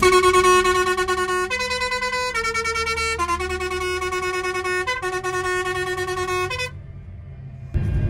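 Musical air horn playing a short tune of about five held notes, stepping up in pitch and then back down, over the low steady rumble of a Claas Lexion combine harvester's engine heard from its cab. The horn cuts off near the end, leaving the engine rumble.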